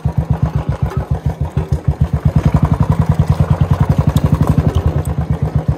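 Royal Enfield Bullet 350's single-cylinder engine running under way with a fast, even beat, getting a little louder from about two seconds in, with a few faint clicks over it.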